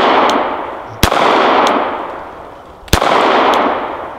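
Semi-automatic .380 VZ 61 Skorpion firing single shots, two about two seconds apart, each followed by a long echo that fades over a second or more. It opens on the fading echo of a shot fired just before, and a faint sharp tick follows each shot about half a second later.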